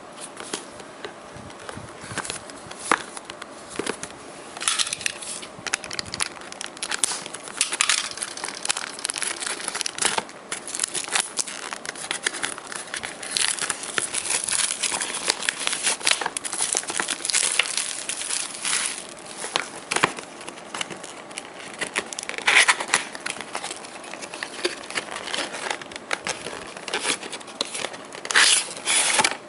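Plastic shrink-wrap on a cardboard retail box crinkling, crackling and tearing as it is handled, cut and peeled off by hand, in a dense run of irregular crackles.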